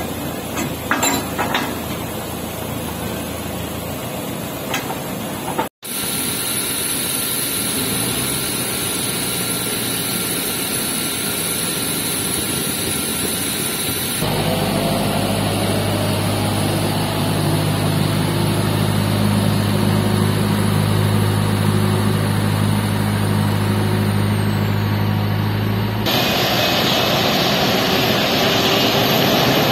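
Jet airliner and pushback tug running on the airport apron: a steady rumble and hiss of engines. A low steady hum comes in for a stretch through the middle, and the noise turns brighter and hissier near the end.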